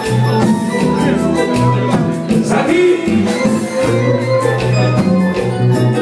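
Haitian konpa band playing live: drums, bass and keytar, with a man singing at the microphone.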